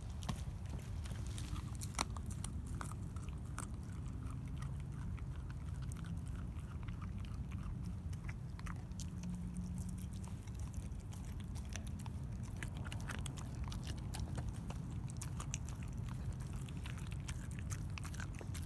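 Dog gnawing and chewing a raw pork rib, with scattered small wet clicks and crunches of teeth on meat and bone over a steady low rumble.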